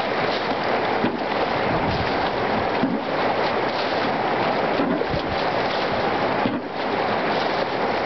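Steady rush and splash of water in a shallow rocky stream pool as it is bailed out with a plastic tub.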